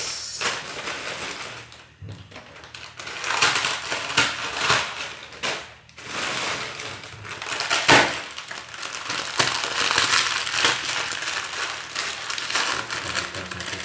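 Plastic instant-noodle packets crinkling and rustling as they are handled and torn open, in irregular bursts with a sharper crackle about eight seconds in.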